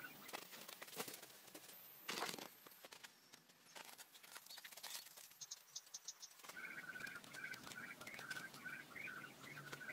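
Faint scraping, patter and crumbling of soil and wet mud being handled by hand, with a louder rushing burst about two seconds in. Rapid repeated chirping sounds in the background through the second half.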